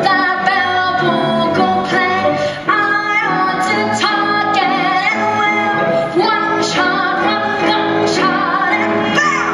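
A boy's high solo singing voice in a show tune, sung live with a string ensemble of violins and cello playing sustained accompaniment.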